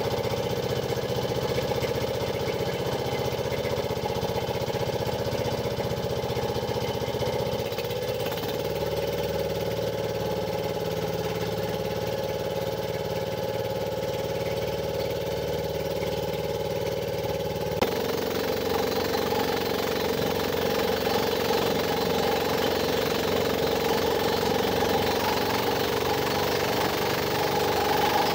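Engine of a motorised outrigger fishing boat (banca) running steadily at an even speed.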